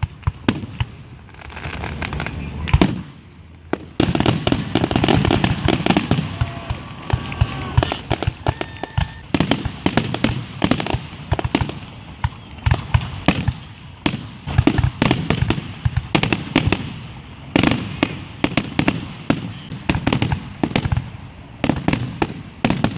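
Aerial fireworks going off in quick succession: a dense run of sharp bangs and crackles with a few short whistling tones in the middle, the bangs thickest from about four seconds in.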